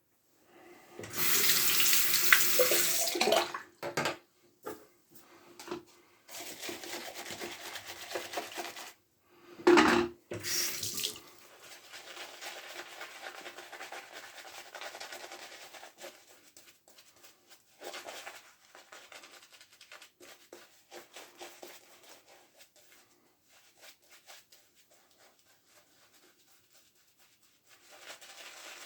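Bathroom sink tap running in a few short spells, then many faint short scratchy strokes of a Gem push-button single-edge safety razor scraping lathered stubble.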